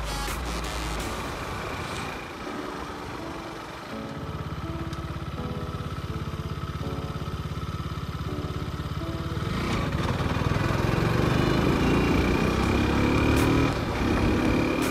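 KTM RC 200's single-cylinder engine running as the motorcycle is ridden, with background music over it for the first half. About ten seconds in, the engine gets louder and its pitch rises steadily as the bike accelerates.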